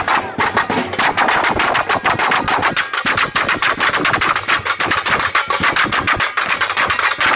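Drum band of snare drums and large metal barrel drums beaten with sticks, loud fast drumming with many sharp strokes a second in a driving dance rhythm.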